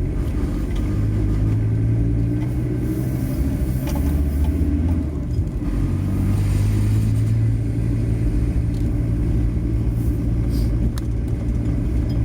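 Car engine and road noise heard from inside a moving car: a steady low drone that eases briefly about five seconds in, then picks up again.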